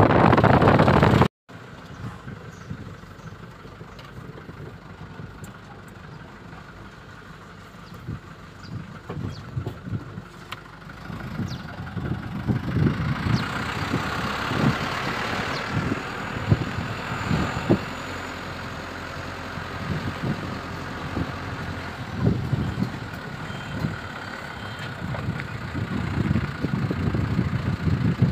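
Loud wind rush on the microphone for about the first second and a half, cutting off abruptly. Then a motor vehicle's engine running, with uneven low thumps, getting louder about halfway through.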